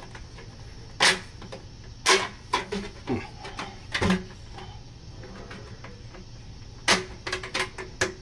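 Galvanized steel dryer vent elbow and pipe being handled and pushed together, the crimped end sliding into the next piece: sharp tinny clanks and rattles of thin sheet metal in several clusters, with a quiet spell in the middle.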